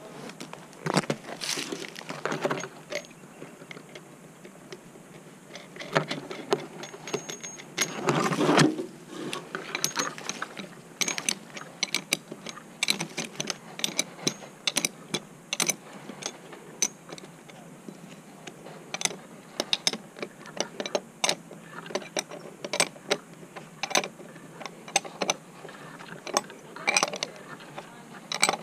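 Irregular metallic clicks and clinks of a tree climber's carabiners and rope hardware being handled, with louder rattles just after the start and about eight seconds in.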